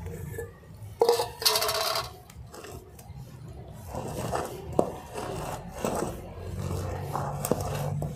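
Stainless steel bowl scraping and ringing against another steel bowl for about a second as spinach paste is scraped out into flour. Then hands rubbing and working the flour and paste in the steel bowl, with a few small clicks.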